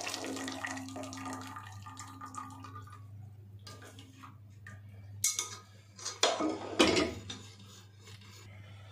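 Chicken stock pouring from a pressure cooker through a metal mesh strainer into a pot, trailing off into drips over the first few seconds. About halfway through come three sharp clinks of metal kitchenware against the pot and dishes.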